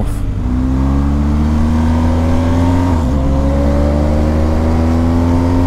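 BMW GS motorcycle engine pulling under acceleration, its note climbing slowly, with a short dip about three seconds in like a gear change, then climbing again. Wind rush runs under it.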